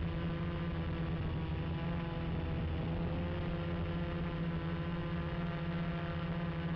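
Gaui 330X quadcopter's brushless motors and propellers running in flight: a steady hum of several tones at once, wavering slightly in pitch.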